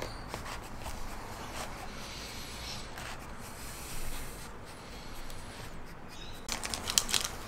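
A three-week-old German wirehaired pointer puppy shuffling in a plastic tub, its claws and body scraping on the plastic. Near the end comes a quick cluster of louder scratchy clicks.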